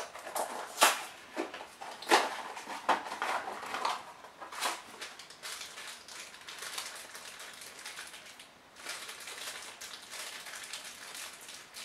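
Packaging for a blind-box vinyl mini figure being opened by hand: sharp crackling snaps of a small cardboard box being torn open over the first few seconds, then steadier crinkling as the foil bag inside is handled and torn.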